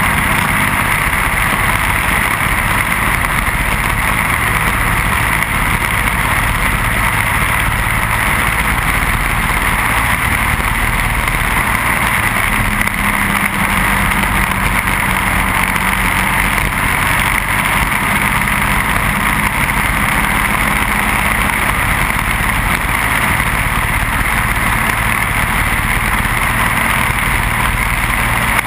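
Briggs & Stratton Animal single-cylinder four-stroke kart engine running steadily at racing speed, with wind rushing over the onboard microphone. The engine note shifts only slightly through the lap.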